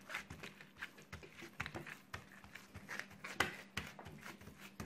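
Hands pressing and patting a sheet of oiled, buttered yeast dough flat on a worktop: faint, irregular soft pats and sticky smacks.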